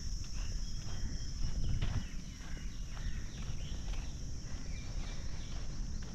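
Footsteps of a person walking along a path, under a low rumble, with a steady high insect drone and short bird chirps.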